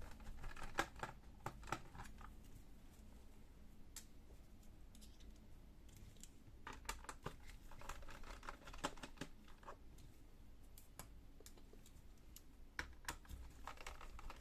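Faint clicks and light scraping of a screwdriver turning out the small screws of a laptop's plastic back panel, coming in short clusters with pauses between them.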